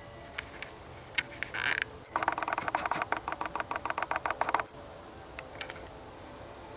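Cowbell clanking in a rapid run for about two and a half seconds, starting about two seconds in, the clapper strokes coming in quick succession over a steady ringing tone.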